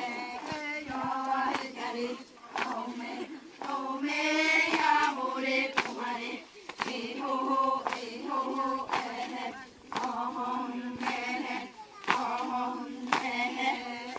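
A group of indigenous Amazonian women and girls chanting in unison as they dance, in short repeated phrases about a second long.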